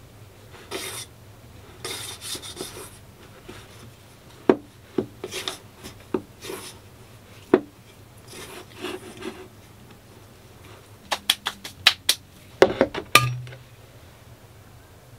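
Hands mixing flour into pizza dough in a stainless steel mixing bowl: scattered scrapes, rubs and knocks of fingers and bowl against the metal and the table. Near the end comes a quick run of sharp clicks and a short clatter as a bottle is opened.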